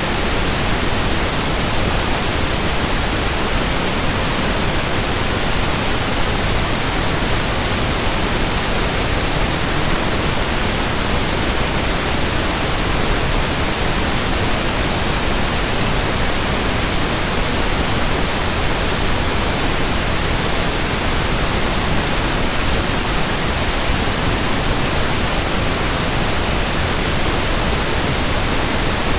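Pink noise test signal: a steady, even hiss spread across the whole range from deep lows to highs, unchanging in level.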